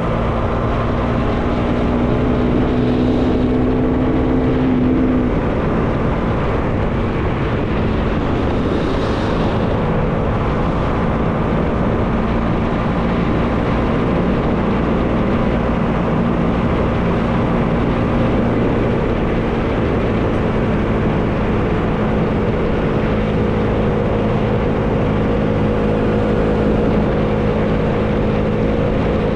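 Bajaj Dominar 400's single-cylinder engine running steadily under way, with wind rushing past; the engine note shifts about five seconds in, then holds steady.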